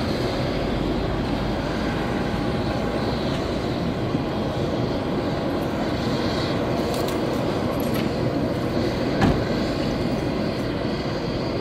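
Steady airport apron noise: a constant drone from parked aircraft and ground equipment, with a faint steady whine. One sharp knock about nine seconds in.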